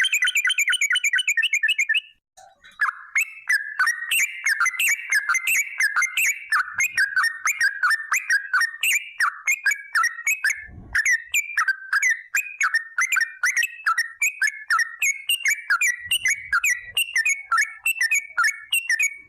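Yellow-vented bulbul (trucukan) singing a long, rapid run of loud, bubbling whistled notes, about six a second, with a short break about two seconds in.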